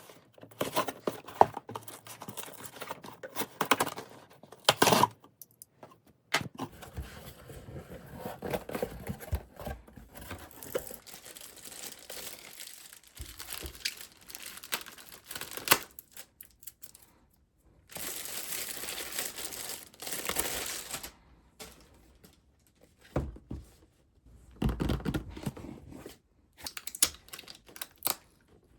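Packaging being torn open and handled: tearing and crinkling in irregular bursts with scattered sharp clicks, and a steadier stretch of tearing lasting about three seconds about two-thirds of the way through.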